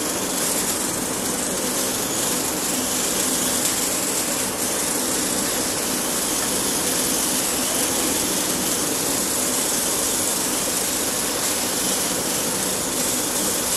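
Electric drive motors and mecanum wheels of a small 3D-printed robot car running with a steady whir as it drives sideways and diagonally across a tile floor.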